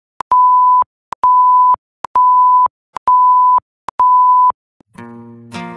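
Film-leader countdown beeps: a steady, high single-pitched beep about once a second, five times, each about half a second long and preceded by a short click. Music comes in near the end.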